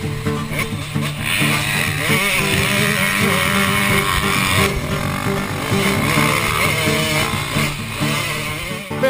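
Motocross dirt bike engines revving hard and rising and falling in pitch, picked up close by a helmet camera, with music playing underneath.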